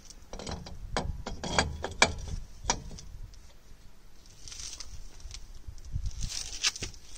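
Metal wheel spacer being slid over a rear hub's wheel studs and seated against the brake drum: a run of sharp metal clicks and clinks in the first three seconds, then softer scuffing.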